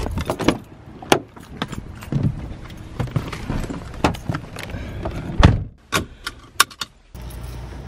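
Keys jangling and handling noises as someone gets into a Volkswagen Beetle, with a heavy thump of the door shutting about five and a half seconds in. Then two sharp clicks of the seatbelt buckle, and a steady low hum starts near the end.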